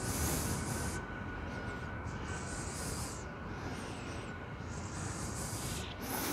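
Outdoor background noise in a garden: a steady hiss over a fluttering low rumble, with high hissing swells coming and going about once a second and a faint steady high tone.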